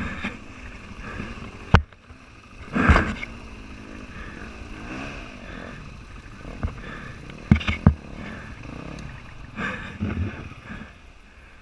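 Dual-sport motorcycle engine running at low trail speed, its pitch rising and falling with the throttle. Sharp knocks come about two seconds in and twice close together near eight seconds, from the bike jolting over ruts and roots.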